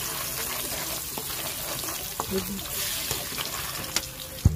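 Sugar, calamansi peels and ginger sizzling in hot oil in a pan while a metal spatula stirs them, with a steady frying hiss and a few sharp scrapes and clicks of the spatula on the pan, the loudest near the end.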